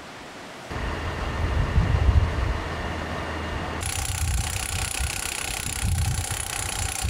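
Heavy truck engine running at idle, a steady low rumble. About four seconds in, a steady high mechanical whine joins it, while the bucket truck lifts a lineworker at a power pole.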